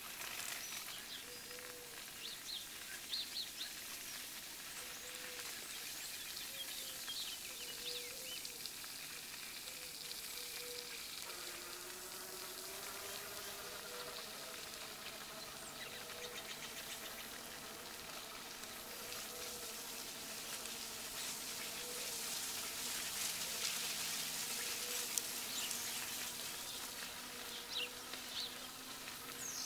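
Electric bicycle rolling along a path: a steady hiss of tyres and wind with a faint steady motor whine. Birds chirp now and then.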